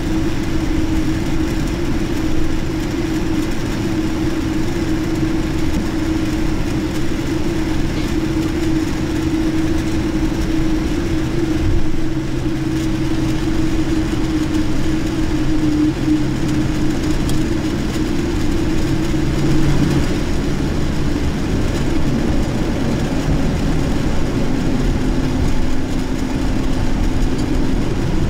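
Boeing 787-9 airliner's turbofan engines running steadily at idle thrust while taxiing, heard inside the cabin as a constant rushing noise with a steady low hum.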